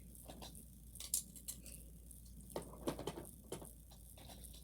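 Fidget spinners being handled and set into a container: a scattering of short clicks and knocks, several of them about a second in and between two and a half and three and a half seconds.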